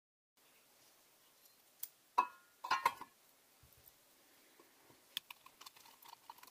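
Small brass and steel model steam engine parts and tools clinking on each other during assembly. A sharp clink about two seconds in rings briefly with a clear pitch, a quick cluster of clinks follows, and light ticks and taps come near the end.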